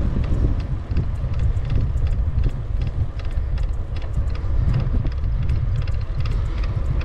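Wind buffeting the microphone of a camera on a moving bicycle: a steady low rumble, with faint rapid ticking throughout.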